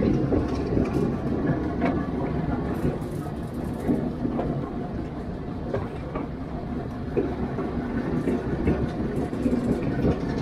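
Narrow-gauge train running along the track, heard from aboard: a steady rumble of wheels on rail with scattered faint clicks.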